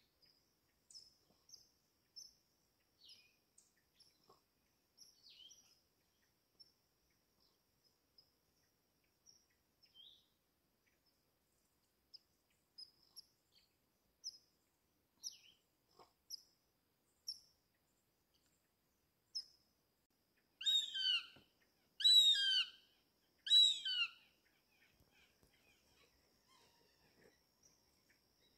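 Wild birds calling: faint, scattered high chirps, then three loud calls in quick succession about two-thirds of the way through, each sliding down in pitch.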